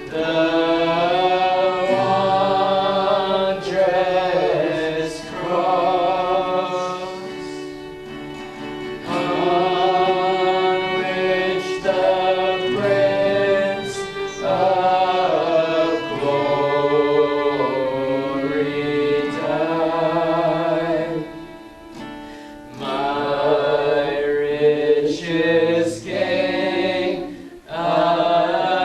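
Worship singing: voices sing long, held phrases over a steady accompaniment, with brief breaks between phrases.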